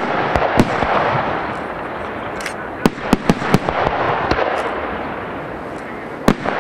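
Aerial firework shells bursting with sharp bangs: two about half a second in, a quick run of four around three seconds in, and one more near the end, over a steady rush of noise.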